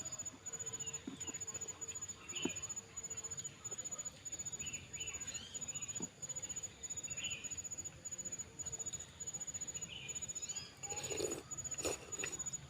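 Close-miked eating of spicy seblak: wet chewing with small mouth clicks, and a few louder clicks near the end.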